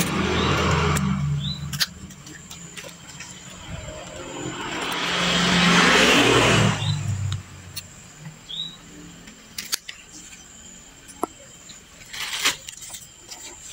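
A motor vehicle passes by, its engine noise swelling and then fading about five to seven seconds in. Later come a few sharp clicks of scissors snipping old leaves.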